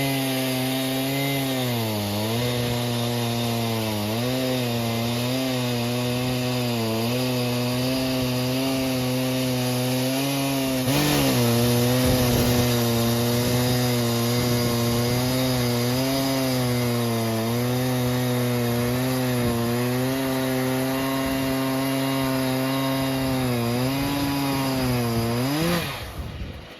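Stihl MS880, a large two-stroke chainsaw, running at full throttle on a Logosol F2 chainsaw mill as it rips a yew log lengthwise. Its pitch dips briefly every few seconds as the chain bogs in the wood, and it gets louder about halfway. Near the end the revs fall and the sound dies away as the cut finishes.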